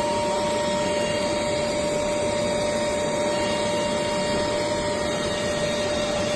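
Lumina CCPF-1700 capacitor charging power supply running under test into a capacitor bank: a steady whir with two steady whining tones.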